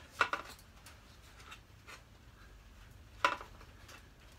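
A few light clicks and knocks from hands working at a motorcycle's rear bodywork and its push-in trim clips. A small cluster comes at the start, one about a second and a half in, and the sharpest knock a little past three seconds in.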